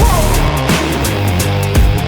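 Loud hard-driving backing music with a steady drum beat.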